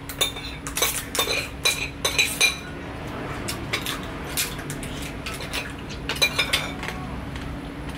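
Dishes and eating utensils clinking and knocking during a meal: a run of sharp clicks in the first couple of seconds, scattered taps, then another quick cluster about six seconds in.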